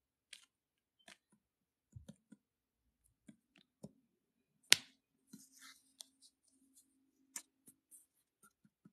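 A quiet room with scattered faint clicks and small taps, one sharp click about five seconds in. A faint low steady tone runs through the second half.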